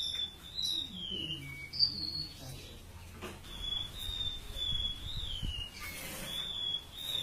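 A siur-siur laut songbird singing in thin, high whistled phrases: each note is held, wavers, then slides downward, repeated over and over with short gaps. A brief rushing noise comes about six seconds in.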